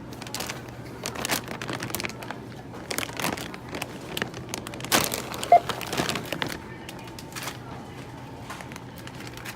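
Packaging being handled, crinkling and rustling with scattered clicks, with a short beep about five and a half seconds in; it settles to a quieter background for the last few seconds.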